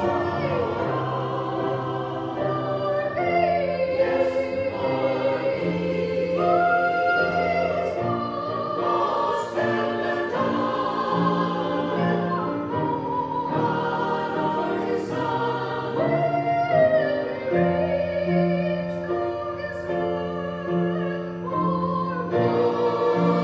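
Church music: voices singing a slow hymn over sustained accompaniment, the melody moving between long held notes.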